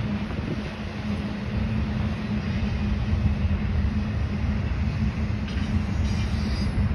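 Norfolk Southern intermodal freight train rolling past: the container cars make a continuous low rumble on the rails, with a steady hum underneath that grows slightly louder.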